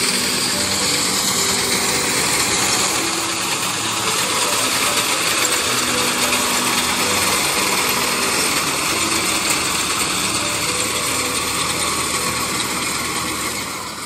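Tractor engine and its mounted reaper running steadily while cutting standing wheat: a loud, continuous mechanical clatter.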